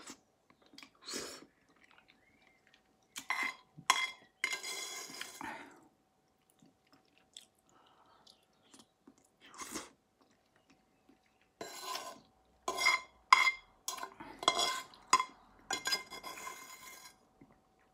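A person eating noodles with a fork from a bowl: chewing and mouth noises, with sharp clicks of the metal fork against the bowl, in short separate bursts with quiet gaps between. The clicks and noises come thickest near the end.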